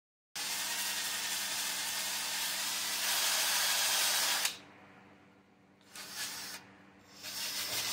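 Cordless drill spinning a hook-and-loop sanding disc against an alloy wheel's rim to sand off curb rash: a steady motor whir with a sanding hiss. It stops about four and a half seconds in and starts again near the end.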